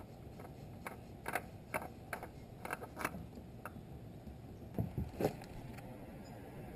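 Light clicks and clinks, about two a second, as a spin-on oil filter is twisted off a Honda CBR929RR motorcycle engine by hand, then two dull knocks about five seconds in. Near the end a faint steady trickle of oil draining from the old filter into a drain pan.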